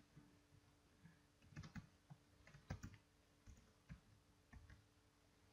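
Faint computer keyboard typing: scattered keystrokes in small clusters, with pauses between them.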